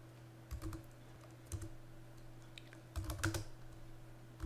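Computer keyboard being typed on: a few separate keystrokes, then a quick cluster of keystrokes about three seconds in, while short terminal commands are entered. A faint steady hum runs underneath.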